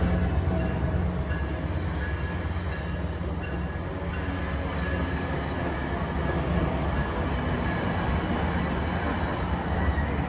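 Virginia Railway Express bilevel passenger cars rolling past along the platform: a steady low rumble of wheels on rail, with faint thin high tones of wheel squeal at times.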